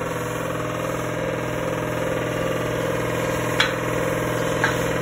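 A steady, even hum of a running engine or motor, with two faint short ticks near the end.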